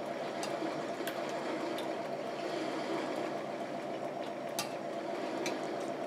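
Eating sounds: a handful of short, sharp clicks and smacks from a fork on a plate and from chewing, over a steady low hum.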